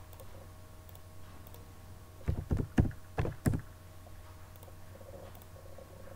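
Computer keyboard keys struck, about five short taps in quick succession a little over two seconds in, as numbers are typed into a spreadsheet, over a faint steady hum.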